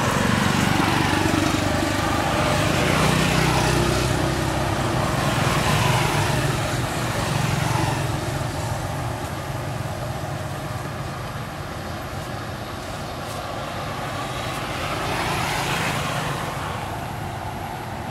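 Road traffic: motor vehicles driving past, the engine and tyre noise swelling and fading, loudest through the first half and swelling again with another vehicle near the end.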